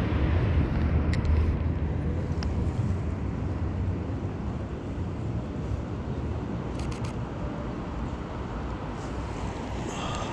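Street traffic noise with a low rumble, loudest in the first few seconds and then easing off. A few short, sharp clicks sound about seven seconds in.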